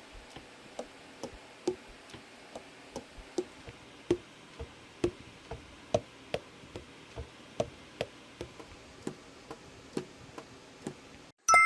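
Tenor saxophone keys being worked without blowing: pads slapping shut on the tone holes, about two to three clicks a second at uneven spacing and strength, each with a brief hollow pop.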